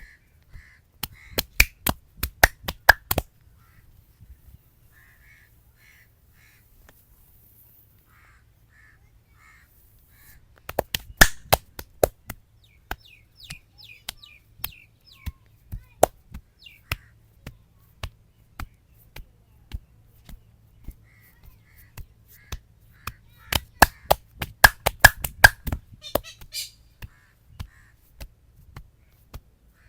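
Hands striking a man's head during a head massage, sharp slaps in quick runs of several a second. Three runs are separated by slower single strikes about every half second.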